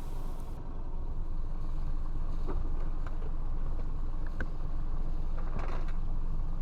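A motorboat's engine running steadily, with a constant low rumble and a few faint ticks.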